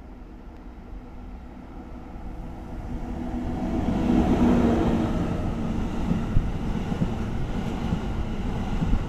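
EF64 electric locomotive hauling a freight train of hopper wagons approaching and passing close by: a rumble that grows louder and peaks with a steady hum as the locomotive goes by about four seconds in. The hopper wagons then roll past, their wheels rumbling and clicking on the rails.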